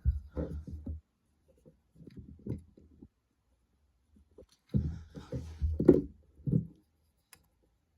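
Rubbing, scraping and light knocks of 3D-printed plastic model parts being handled and fitted together, in three short spells.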